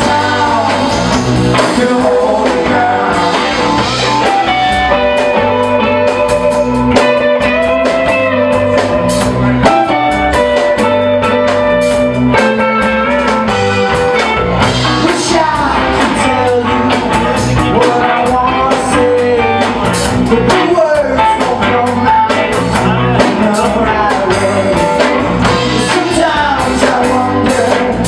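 Live band playing a blues-rock song, with guitar, drums and a singer.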